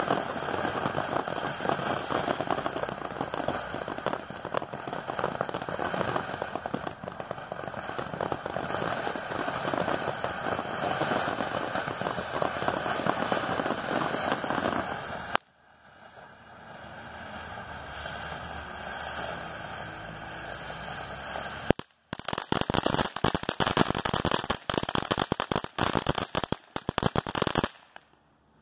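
Consumer fireworks fountain (Boomer Fireworks Quicksilver) burning: a dense rushing hiss and crackle of sparks that drops out abruptly about halfway, then a quieter hiss builds and the finale breaks into rapid sharp crackles and pops. None of the whistle effects its label promises can be heard.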